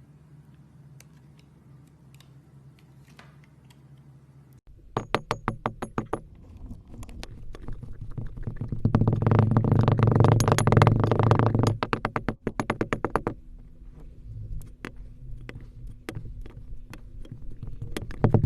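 Crackling and popping in quick runs of sharp clicks, starting suddenly about five seconds in after a stretch of faint scattered ticks; densest and loudest in the middle, then thinning to sparser pops near the end.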